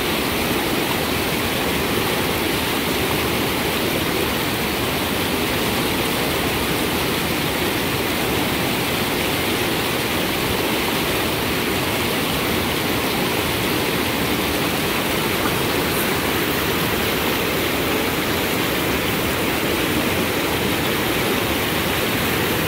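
Whitewater river rapids rushing steadily over boulders.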